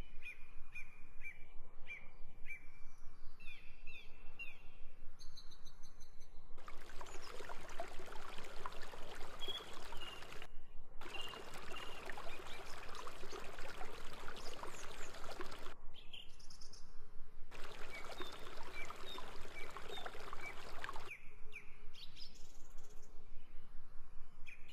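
Birds chirping: a run of short repeated chirps, then three stretches of dense chatter from many birds, each starting and stopping abruptly.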